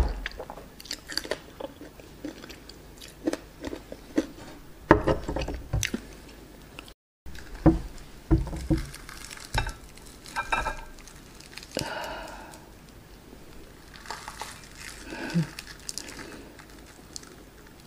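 Close-miked chewing and crunching of breaded fried chicken, with sharp crackles. After a brief dropout about seven seconds in, a fried drumstick is dipped and dragged through thick cheddar cheese sauce in a glass bowl, giving wet squishing and clicks.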